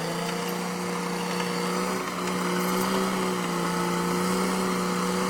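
Caterpillar D6R XL bulldozer's diesel engine running steadily, its tone holding level, with a brief dip in loudness about two seconds in.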